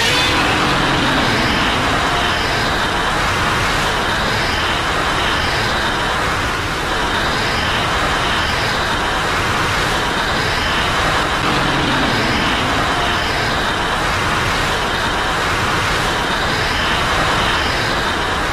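Godzilla Ultima's atomic breath sound effect: a loud, steady rushing blast that does not let up, with a faint pulsing pattern coming back about every three seconds.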